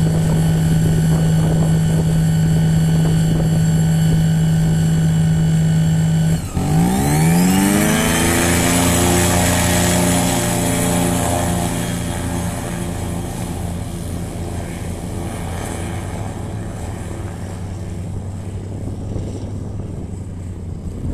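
Propeller engine of a glider tow plane running steadily, then about six seconds in it briefly dips and revs up to full power, its pitch rising, for an aerotow take-off. It grows fainter after the take-off roll begins.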